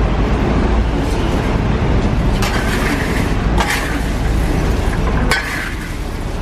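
Metal wok shovel scraping and churning chestnuts through hot sand in a large iron wok, with three harsh scraping strokes about a second apart in the second half. A steady low rumble runs underneath.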